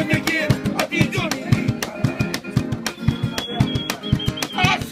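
Acoustic guitar strummed fast and rhythmically, in a Latin American folk style.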